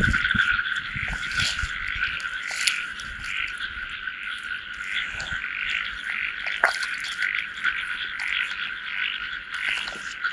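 A dense night chorus of frogs calling steadily, with low sloshing of muddy water in the first second or so.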